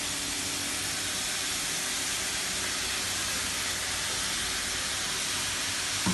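Agathi keerai greens sizzling in oil in a kadai: a steady frying hiss, with a short knock at the very end.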